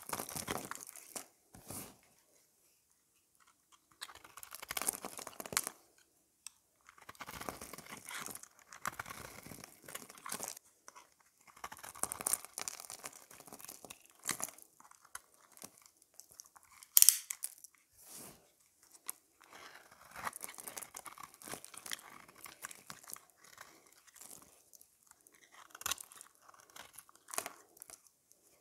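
Metal knife blade cutting and shaving a bar of dry painted soap: crisp crunching and crackling scrapes in irregular bursts, with one sharp snap about two-thirds of the way through.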